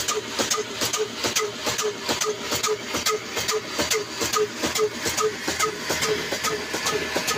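Old black Ruston Hornsby-type single-cylinder diesel engine running steadily under load, driving a flour mill by flat belt, with the mill grinding as grain is fed in. An even, slow beat of about two and a half knocks a second, with sharper clicks between.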